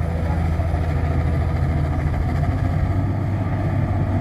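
Hydraulic excavator's diesel engine running steadily, a low even drone.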